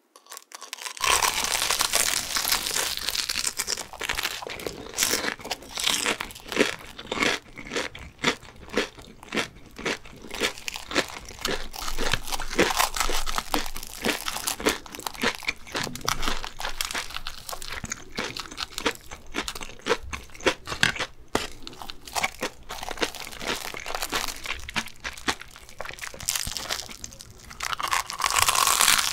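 Close-miked crunching and chewing of a sugar-coated, deep-fried mozzarella corn dog, a dense crackle of crisp batter being bitten. It starts about a second in and gets louder near the end.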